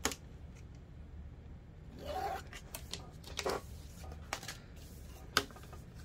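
Handling of a plastic quilting ruler and a strip of vinyl on a sewing table: a handful of sharp clicks and taps with a short rustle about two seconds in, the loudest click near the end.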